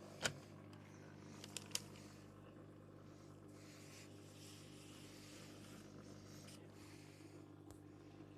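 Zanussi washing machine running faintly: a steady low hum with soft swishes of water and foam every couple of seconds. A sharp click comes just after the start, and two lighter ones follow about a second and a half in.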